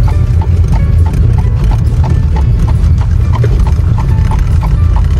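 A horse trotting, its hooves clip-clopping on the paved road in a quick, even rhythm, heard from inside the horse-drawn buggy over a steady low rumble from the rolling buggy.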